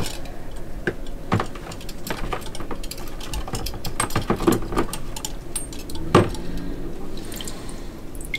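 Metal nuts and bolts hung on copper wire clinking together as they are dunked and swished in a bucket of rinse water. Irregular scattered clinks and knocks come through over the sound of sloshing, dripping water.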